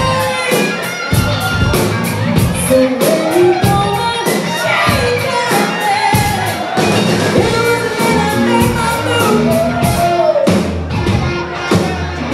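Live rock band playing: a woman sings lead over electric guitar, bass guitar and a steady drum beat.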